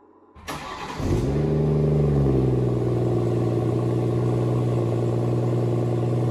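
BMW 340i's turbocharged 3.0-litre straight-six starting up: a brief crank about half a second in, the engine catches with a rev flare about a second in, then the revs drop back and settle into a steady idle.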